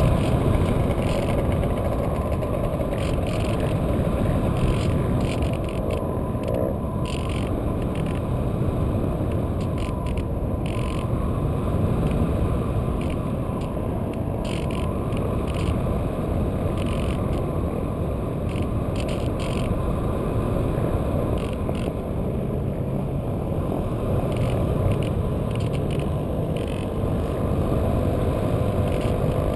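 Steady wind rush over an onboard camera on a Radian RC glider in flight, with the faint, even hum of its electric motor and spinning propeller underneath.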